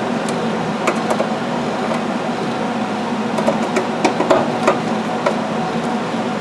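Scattered light clicks and taps of a Phillips screwdriver and small mounting screws as a circuit board is pushed into place and screwed down, over a steady background hum.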